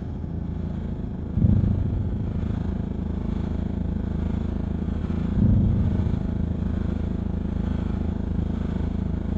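Low, droning ambient music of steady held deep tones, swelling about a second and a half in and again about five and a half seconds in.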